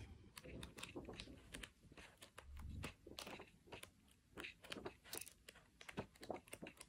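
Pages of a large paperback colouring book being flipped one after another: a faint, irregular run of paper flicks and rustles.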